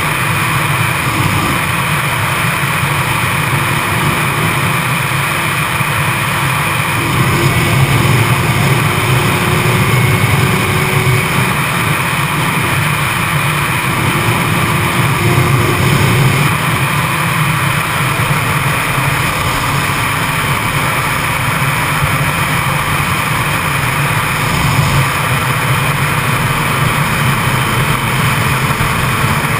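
Onboard sound of a Yamaha YZF-R6 at road speed: a steady rush of wind over the camera with the inline-four engine running underneath, swelling slightly for a few seconds partway through.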